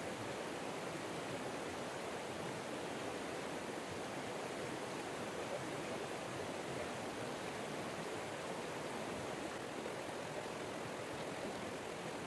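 Steady, even rush of a river running high in flood, with no breaks or separate splashes.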